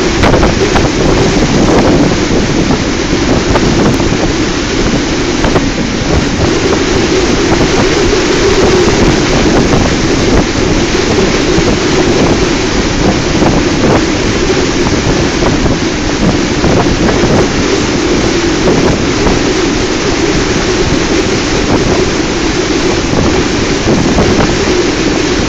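Loud storm wind gusting across the microphone on a ship's open deck, over the rush of rough sea.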